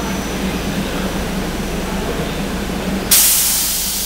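SEPTA Silverliner IV electric railcar humming steadily at the platform, then a sudden loud hiss of compressed air about three seconds in, tapering off slowly: the air brakes venting as the train comes to a stand.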